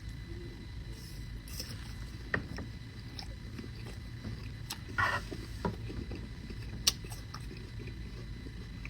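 Steady low hum with a few scattered sharp clicks and a short rustle about five seconds in.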